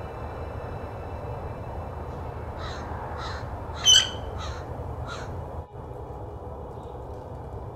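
Lilac-crowned Amazon parrot giving a run of five short, harsh caw-like calls about half a second apart, the middle one the loudest.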